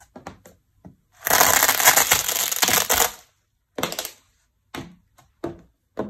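A pile of noodles being crushed underfoot: a dense crunching and crackling for about two seconds starting a second in, then a few short, separate crackles.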